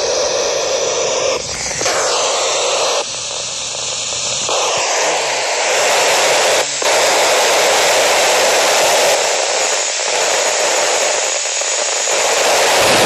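Ham radio receiver hissing loudly with open-squelch FM static, with no voice coming through: the ISS downlink has faded out at the end of the pass. The hiss is steady apart from one brief dip a little past the middle.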